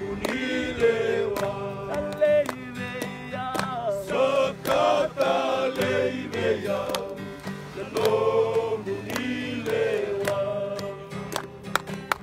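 Voices singing a gospel hymn together, accompanied by a strummed acoustic guitar.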